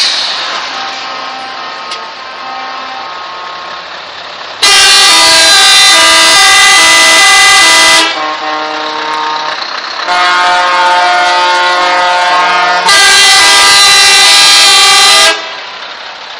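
A truck's diesel engine running as it passes, then truck air horns blasting three times, each blast a few seconds long, with several tones sounding together and the notes changing during each blast. The last two blasts come almost back to back.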